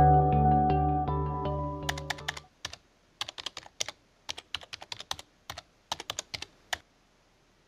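Background music fading out over the first couple of seconds, followed by a run of quick, light clicks in irregular small clusters that stop near the end.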